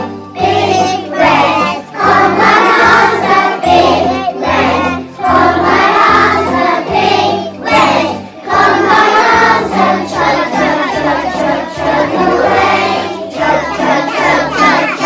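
A group of young children singing a song together over musical accompaniment with a steady bass line.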